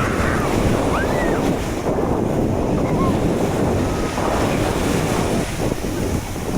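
Sea waves washing onto a sandy beach, with wind buffeting the microphone.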